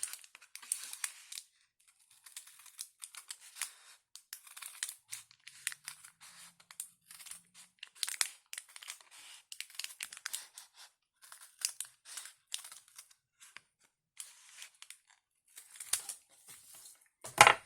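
Paper-craft material being cut along a strip and handled: many short, irregular crackly snips and rustles. A louder knock comes near the end.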